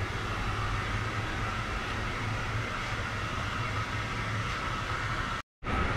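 Steady hum and whir of running workshop machinery, with no distinct knocks or strikes. Near the end it cuts out to silence for a moment.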